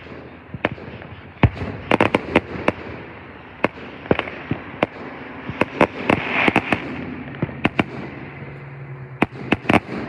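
Aerial firework shells bursting in the distance, about twenty sharp bangs at irregular spacing with crackling between them. There is a denser spell of crackle around six to seven seconds in.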